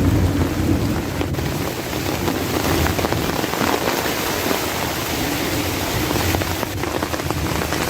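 Heavy rain pouring steadily, a dense hiss with a low rumble underneath.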